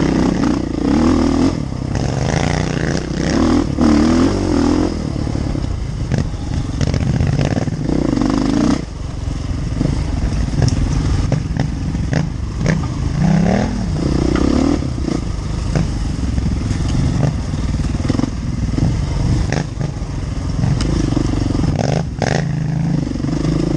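Enduro motorcycle engine on a trail ride, revs rising and falling over and over as the throttle is worked, with scattered knocks and clatter from the bike over rough ground.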